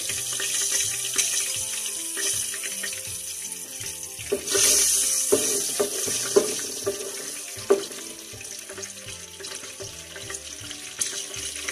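Cardamom powder sizzling in hot oil and desi ghee in a pot, a steady hiss that swells about four seconds in as a spatula stirs it, with a few sharp taps of the spatula on the pan.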